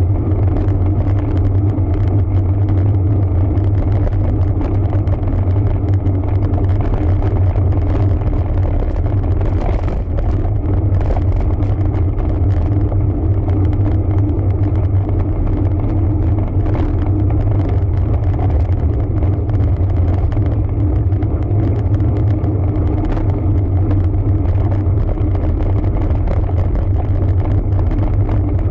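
Steady low rumble of wind and tyre noise on the camera microphone of a road bike being ridden.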